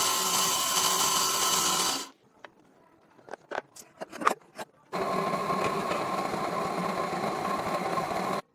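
A small power tool's motor running steadily with a whine. It cuts off abruptly about two seconds in, and a few light knocks and taps follow. At about five seconds the tool runs again, cutting off just before the end.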